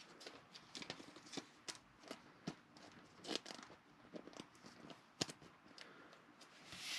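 Trading cards being handled and one slid into a clear plastic penny sleeve: scattered soft rustles and light clicks of card stock and plastic, with a louder rustle near the end.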